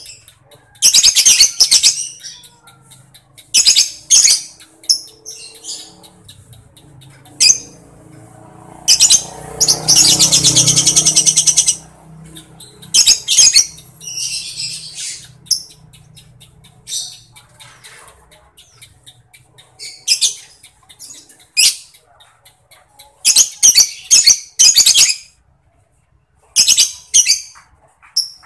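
Lovebirds chattering in short, high-pitched bursts, with one long, rapidly pulsing trill of about three seconds near the middle: the long cackling song keepers call "ngekek", mixed with the quick ticking "ngetik" chatter.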